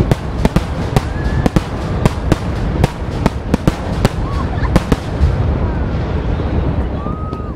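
Starmine fireworks barrage: aerial shells bursting in quick succession, several sharp reports a second, thinning out about five seconds in, over a continuous low rumble.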